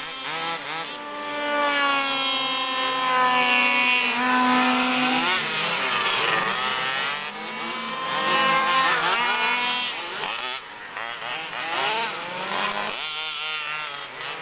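Small two-stroke engines of several petrol RC Baja buggies racing, each revving up and down so that their pitches rise, fall and overlap, with a brief dip in level about ten seconds in.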